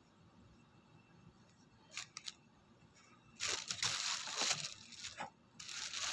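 Cardboard box and paper packaging being handled: a couple of light clicks about two seconds in, then two spells of rustling and scraping.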